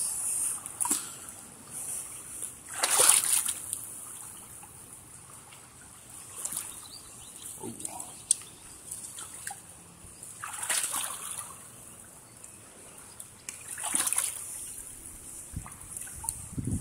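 Shallow pond water splashing and sloshing in several short bursts, the strongest about three, eleven and fourteen seconds in.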